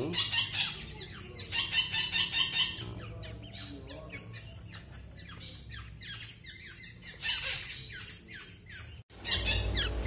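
Black-naped oriole nestlings giving harsh, high begging squawks in quick runs, loudest over the first three seconds, with another stretch of calls about six seconds in.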